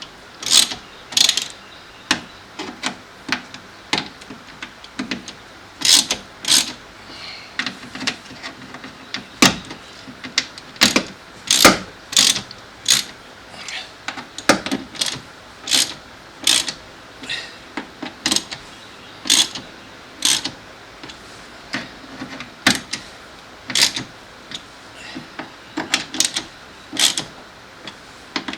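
Hand ratchet clicking in short strokes, sharp clicks one to two a second, often in quick pairs, as screws holding the door lock actuator and latch are tightened down.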